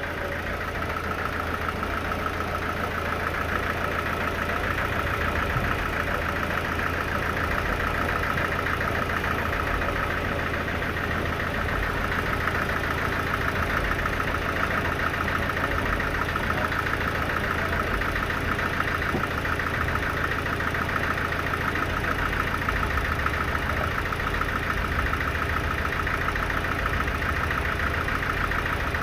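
An engine running steadily at an even speed, with a fast, regular pulse.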